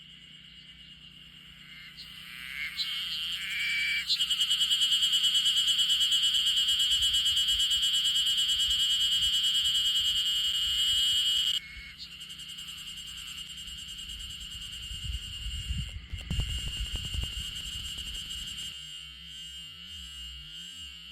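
A cicada singing: a steady, high, pulsing buzz that swells up over the first few seconds and drops off suddenly about halfway through, then carries on more quietly. A few low rumbles come in later.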